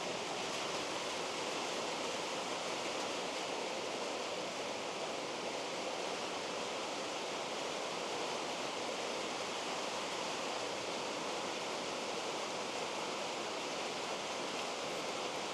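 A steady, even rushing noise with no distinct sounds standing out of it.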